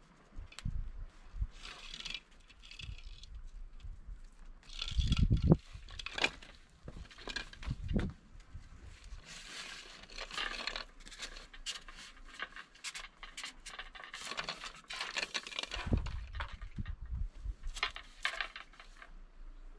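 Handling noise from a fishing rod and its line: scattered small clicks and rustles, broken by dull low thumps about five seconds in and again about sixteen seconds in, the first one the loudest.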